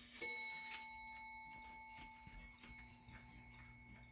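Howard Miller 610-152 grandfather clock's Urgos chime movement striking once: a single clear, bell-like note that rings and fades over about three seconds, over the faint tick of the movement.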